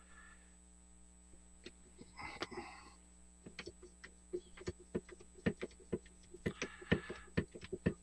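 Temco Industrial hydraulic lug crimper being pumped by hand, closing on a copper lug on heavy battery cable. From about halfway through, a faint run of sharp clicks from the pump strokes, roughly three a second.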